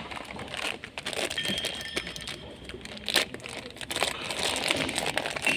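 Hands working the plastic parts of a car's in-tank fuel pump assembly: irregular clicks and crinkling, with one sharper click about three seconds in.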